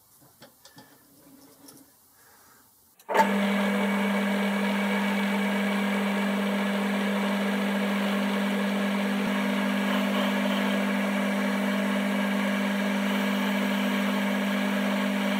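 A few light clicks of handling, then from about three seconds in a metal-turning lathe starts suddenly and runs with a steady, even hum while facing the end of a blank.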